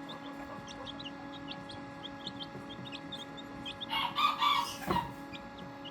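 Young Serama bantam chicks peeping in many short, high cheeps, with a louder chicken call lasting about a second about four seconds in. A steady hum runs underneath.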